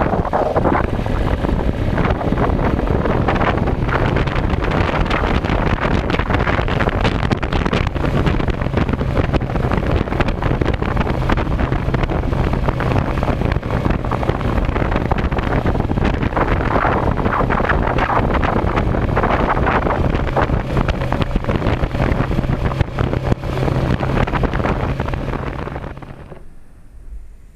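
Heavy wind buffeting on the microphone while riding a dual-sport motorcycle, with a steady engine note underneath from about eight seconds in. Near the end the wind and engine sound fall away quickly.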